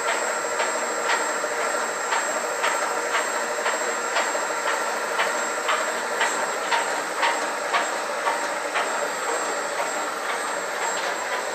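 Steady hiss of ship's engine-room machinery, with a regular ticking about twice a second.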